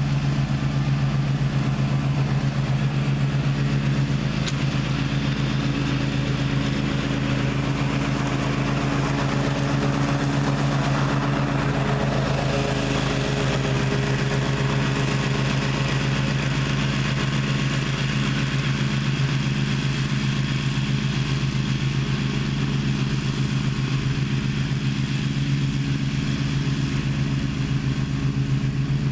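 Gravely ZTx 42 zero-turn mower's engine running at a steady, constant speed.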